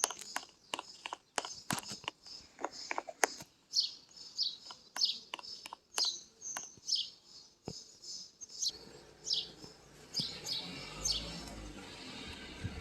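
A small bird chirping in short, high, falling notes, over a run of sharp clicks and taps in the first few seconds, with a low background hum coming in near the end.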